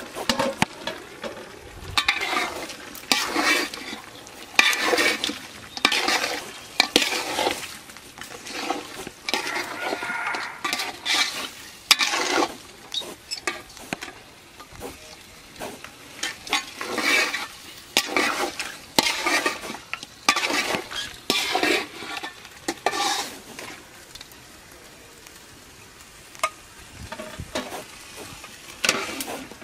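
Metal cooking pot and utensils clattering and scraping in irregular bursts as food is stirred and handled, with some sizzling. It gets quieter over the last few seconds.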